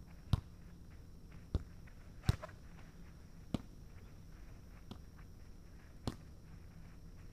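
A volleyball being passed back and forth: five sharp slaps of the ball on the players' forearms and hands, about one every second or so, with a longer gap before the last.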